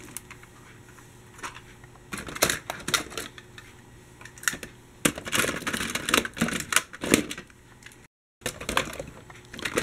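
Toy trams and buses clattering and knocking against each other as a hand rummages through a box full of them, in several irregular bursts of rattling with short quieter gaps.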